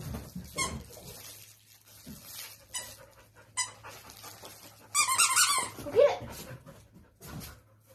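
Squeaky dog toy squeaking in short quick runs as it is squeezed during a game of fetch, the loudest and longest run about five seconds in.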